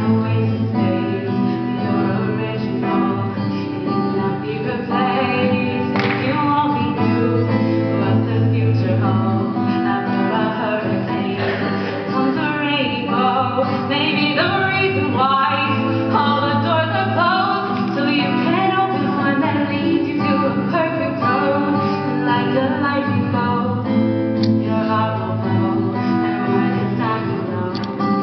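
A singer singing a song while playing an acoustic guitar, live.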